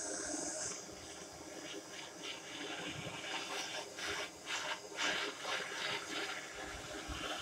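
Flame hissing steadily with scattered irregular crackles as a 50cc scooter exhaust is heated to burn out its carbon deposits.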